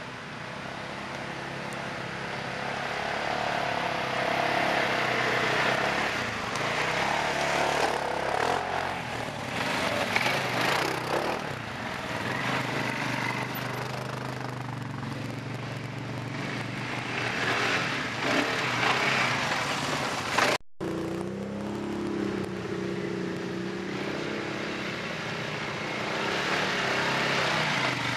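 Engines of off-road side-by-side UTVs and quad bikes working their way up a rutted dirt trail, the revs rising and falling. The sound breaks off briefly about two-thirds through, then a nearer engine carries on with a changing pitch.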